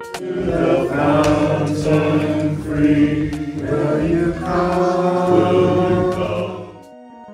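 A congregation singing a hymn together, many voices at once, sustained until it stops near the end. A few soft instrumental notes follow.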